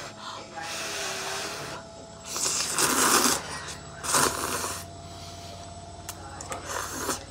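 A person slurping kimchi noodles from chopsticks: several noisy slurps, the loudest about two and a half and four seconds in, with a shorter one near the end.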